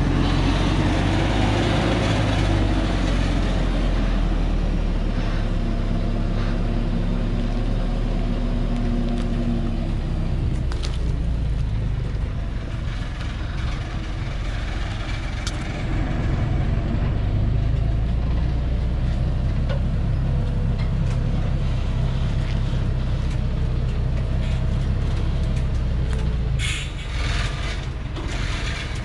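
Heavily loaded log truck's diesel engine running low and steady as it crawls downhill on a dirt track, with a short hissing burst near the end.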